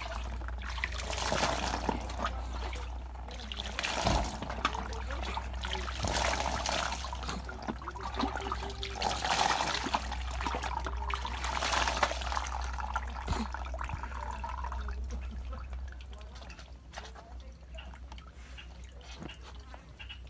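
Water scooped from a drum and poured over a small dog to rinse it during a bath, splashing in repeated pours every second or two. The pouring stops about fifteen seconds in.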